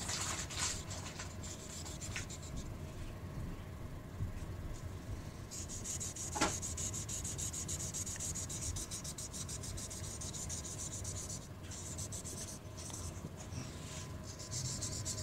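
Imagine Ink marker's felt tip rubbing and scribbling across the page of a magic-ink colouring book, coming in stretches with short pauses. One sharp click about six seconds in.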